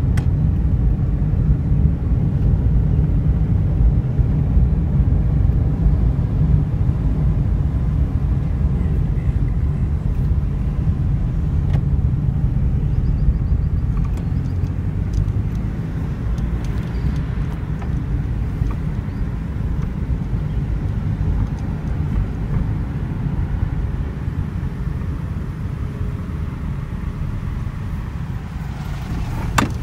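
Road and engine rumble heard inside a moving car's cabin: a steady low drone that gets a little quieter about halfway through.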